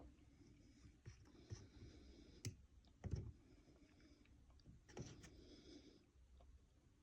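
Cornstarch powder worked by hand, giving faint, scattered squeaky clicks and crackles; the loudest cluster comes about three seconds in.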